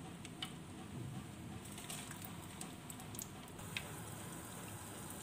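Egg-coated chicken shami kabab frying in hot oil in a frying pan: a faint steady sizzle with small scattered crackles and pops.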